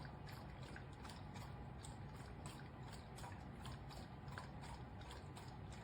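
Faint low hum of a pet water fountain's pump running, with irregular light ticks of water falling.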